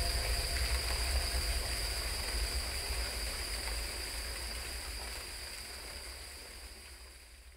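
Steady rushing of a waterfall, a hiss over a deep rumble, fading out gradually over several seconds.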